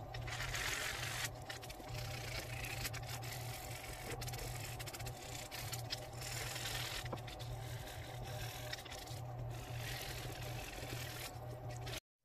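Hand file scraping over a small carved wooden lure body in irregular stretches of strokes, shaping and sanding it, over a steady low hum.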